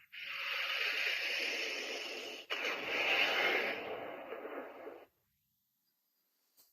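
Toy transformation belt's small speaker playing an electronic whooshing sound effect in two long bursts, cutting off about five seconds in.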